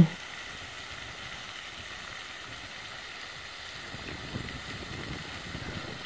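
Steady rush and splash of water falling down a cascade fountain wall into its pool, with a faint low rumble joining about four seconds in.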